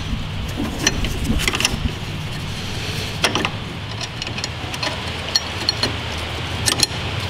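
Metal parts clicking and clinking as a mower deck's steel lift linkage and yoke are fitted and tightened by hand, a few sharp clicks scattered across several seconds. A steady low hum underneath.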